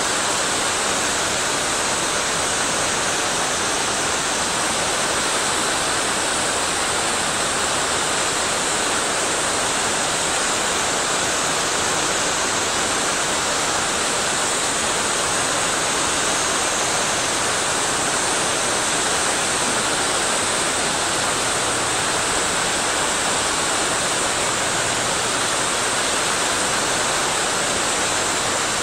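Mountain stream or waterfall rushing steadily, a dense, even roar of falling and tumbling water.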